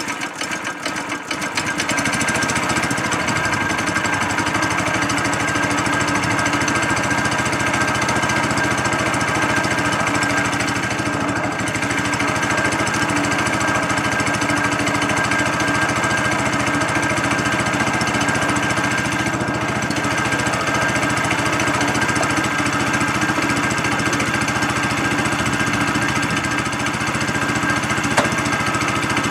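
The small engine of a homemade mini dump truck running at a standstill. It is uneven for the first moment, picks up speed about two seconds in, then holds a steady fast idle.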